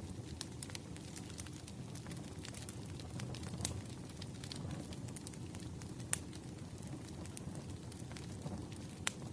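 Wood fire burning with a steady low rumble and frequent sharp crackles and pops, the loudest pops about six and nine seconds in.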